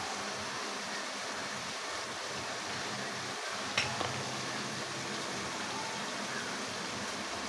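Steady, even kitchen hiss, with a small sharp click a little under four seconds in.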